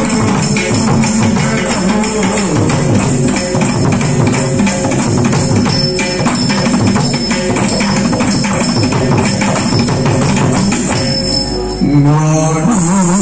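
Live Thullal accompaniment: a steady, quick beat of drum strokes and small jingling cymbals under a voice singing the verses. About twelve seconds in, the level dips briefly and a louder sung line comes in.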